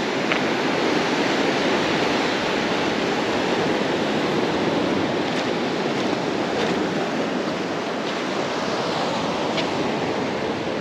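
Sea waves breaking and washing up a sand-and-shingle beach, a steady rushing noise.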